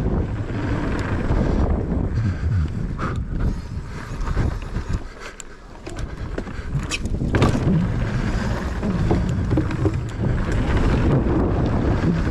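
Wind buffeting the microphone over the noise of a mountain bike riding fast down a dirt freeride trail, with frequent knocks and rattles from the bike over rough ground. The noise drops briefly about five seconds in.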